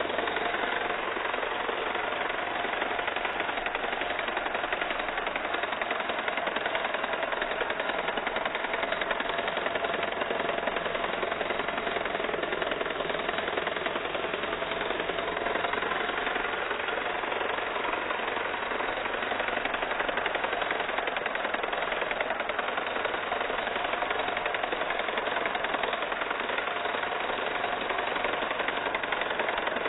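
Electric shearing handpiece running steadily as it clips mohair from an Angora goat: a continuous motorised buzz whose pitch wavers slightly.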